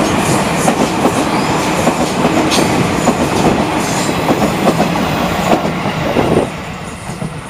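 KRL Commuter Line JR 205-series electric train passing close by, with continuous wheel-on-rail running noise. The sound drops off suddenly about six and a half seconds in.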